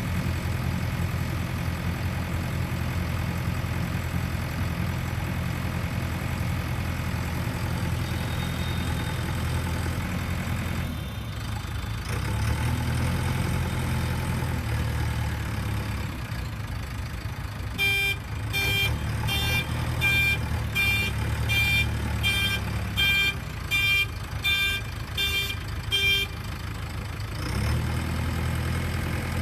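A JCB 3DX backhoe loader's diesel engine idling steadily, its note shifting about a third of the way in. About two-thirds of the way in, a warning beeper sounds a steady run of beeps, about two a second, for some eight seconds.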